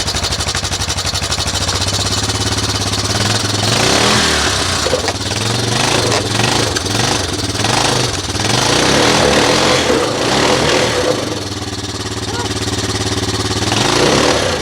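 ATV engine running under load, revving higher from about four seconds in to about eleven seconds, easing off, then rising again near the end.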